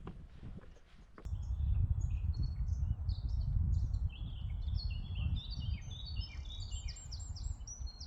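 Small birds singing in quick, varied phrases of short high notes, with rapid repeated notes near the end, over a loud low rumble of wind on the microphone that starts abruptly about a second in. Faint footsteps come before it.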